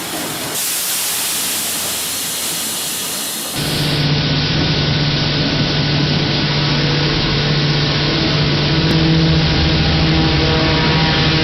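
A steady hiss for the first few seconds, then sawmill machinery running with a steady low hum.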